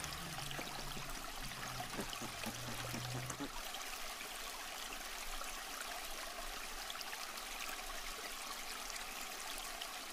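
Steady rush of a shallow river running over rocks. A low, steady droning tone sits under it for the first three and a half seconds or so, then stops.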